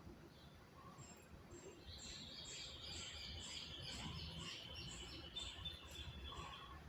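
A bird chirping faintly in the background: a series of short, high chirps about two a second, starting about two seconds in and stopping shortly before the end.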